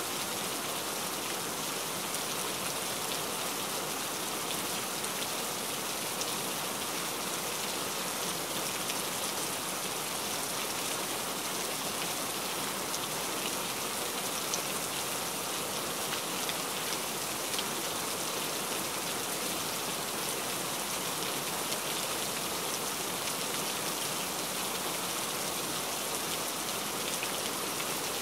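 Heavy rain falling steadily on a surface, a dense even hiss with scattered individual drop ticks.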